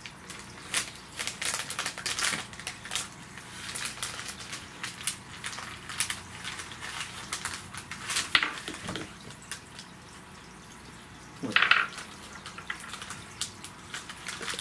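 Plastic candy wrapper crinkling and rustling in quick irregular bursts as the bag of sour gummy candies is opened and handled. Two louder bursts come in the second half.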